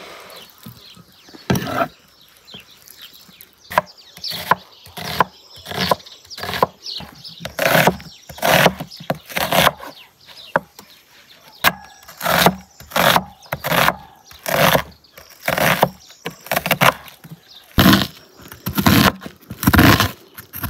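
Meat cleaver chopping on a wooden cutting board, first through raw chicken and then through a red onion. The sharp strokes come irregularly, roughly one or two a second.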